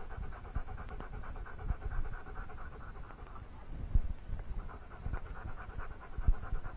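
A German Shepherd Dog panting quickly and steadily, with a few soft low thumps.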